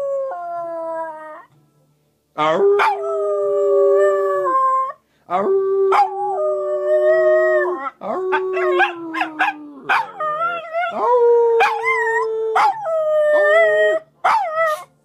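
Small dog howling: a series of long, steady-pitched howls of two to three seconds each, with shorter broken yelping notes around the middle and near the end.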